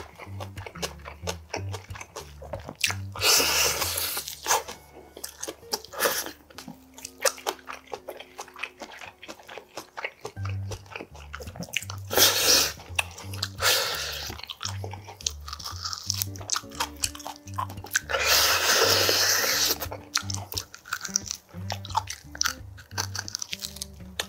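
Close-miked eating of grilled pork back ribs: biting meat off the bone and chewing, with wet mouth sounds. Background music with a steady bass beat runs underneath, dropping out for a few seconds near the middle.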